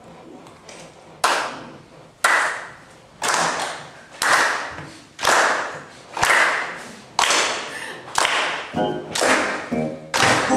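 Hands clapping a steady beat, about one clap a second. Digital piano chords come in about two seconds before the end.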